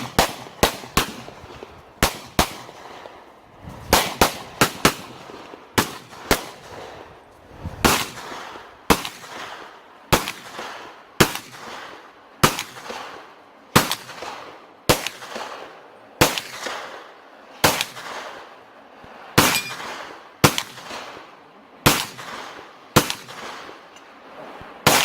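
Handgun shots, a quick run of them in the first few seconds, then single shots about one a second, each followed by a short echo.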